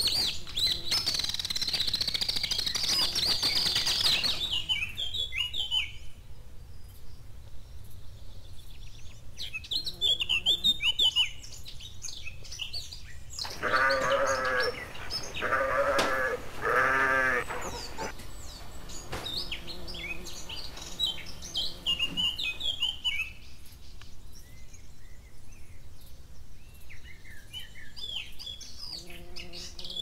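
Birds chirping and twittering, densest in the first few seconds, with three long bleats from a farm animal in the middle.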